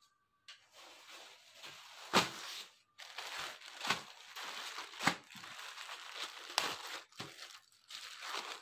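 Clear plastic garment bags crinkling and rustling as hands handle packaged children's shirts, with several sharper crackles along the way.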